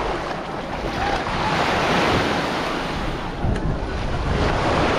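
Sea waves washing onto a beach, with wind buffeting the microphone in a low rumble.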